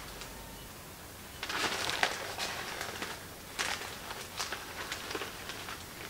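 Newspaper pages rustling and crinkling as they are handled, in a few short bursts, the loudest about one and a half to two seconds in.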